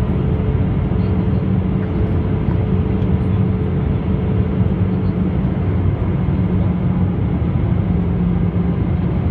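Airbus A320-214 jet engines and airflow in flight: a loud, steady rush with a constant low hum.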